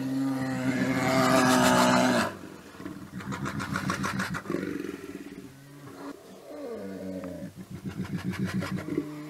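Two male brown bears growling at each other in a territorial face-off. A long, loud, steady growl comes first, followed by quieter rattling, pulsing growls and one that falls in pitch.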